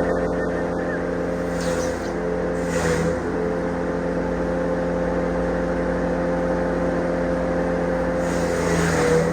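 An engine running steadily at constant speed, with two brief hissing surges, about two seconds in and near the end.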